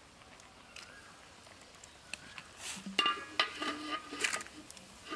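Green banana slices frying in oil in an iron kadai, a faint even sizzle, then about three seconds in a quick run of metallic clinks and scrapes as the slotted spoon knocks against the pan.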